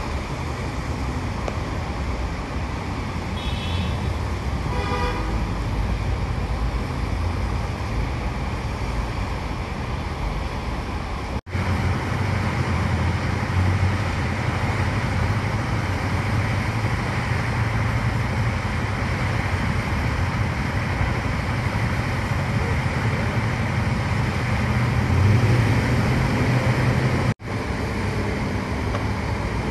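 Steady highway traffic: engines and tyres hissing on wet pavement with a low rumble. There is a short horn toot about four to five seconds in, and the sound drops out for an instant twice.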